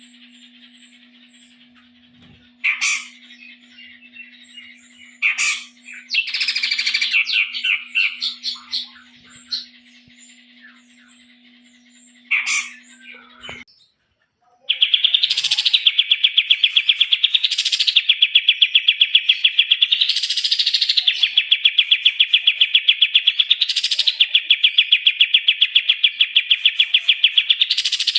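Recorded songbird material for training cage birds. First scattered chirps and short calls over a faint steady hum; then, after a brief break about halfway, a continuous, very rapid trill with a sharp high note every two seconds or so.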